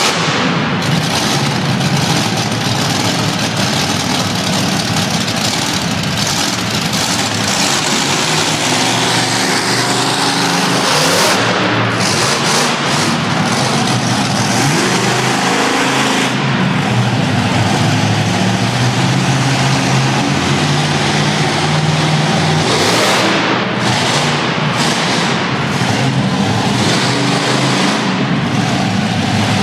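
Several monster truck engines running and revving loudly together, their pitch rising and falling as the trucks drive around the dirt arena.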